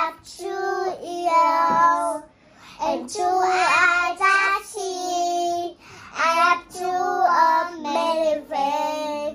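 Two young girls singing a children's song about body parts together, in short sung phrases with held notes and brief pauses between them.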